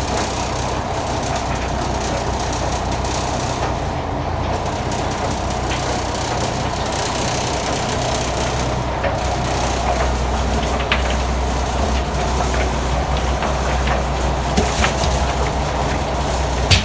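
Fish-pellet machine's crusher running steadily with a low drone, its blades grinding hard blocks of fish, with a few sharp cracks in the second half.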